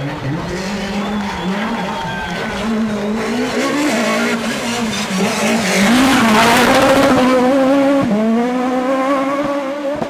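Peugeot 306 Maxi rally car's naturally aspirated four-cylinder engine at full race effort. Its note wavers up and down as the driver works the throttle and gears, and it grows louder to a peak in the second half.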